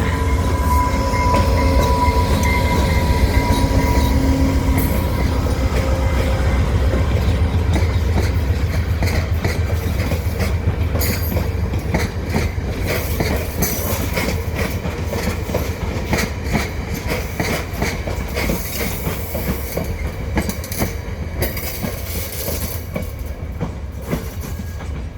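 Via Rail passenger train pulling into a station close by: a heavy low rumble with a thin steady squeal in the first couple of seconds, then wheels clicking rapidly over the rails, the whole sound easing off slowly as the train slows.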